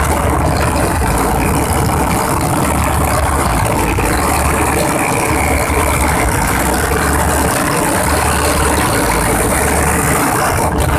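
Motorcycle engines running steadily at road speed, heard from the rider's seat of a sport bike, with wind rushing over the microphone.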